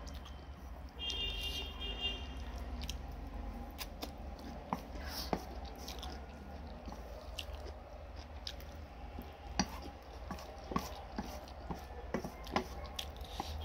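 Close-up eating sounds: chewing noodles, with sharp scattered clicks of chopsticks against a steel plate, over a steady low hum.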